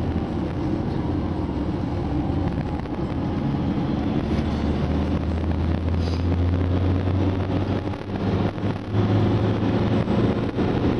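Ford Transit van's 170 hp diesel engine running steadily under way at track speed, heard from inside the cab with road and wind noise. About eight seconds in the engine sound dips briefly, then comes back louder.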